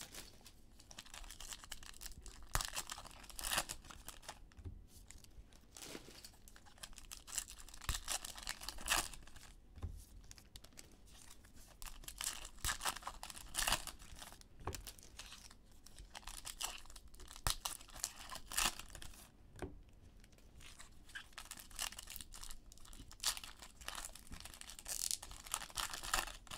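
Foil trading-card pack wrappers being torn open and crinkled by hand, in short, irregular crackling rustles.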